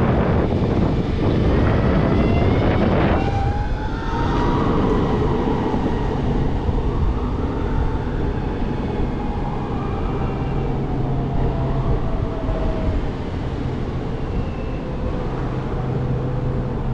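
Electric skateboard ride in traffic: heavy wind on the microphone for about three seconds, then a steady hum with a whine that rises briefly and slowly falls in pitch as the board slows, and other whines that rise and fall.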